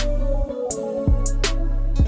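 Background music with a steady drum beat and plucked guitar.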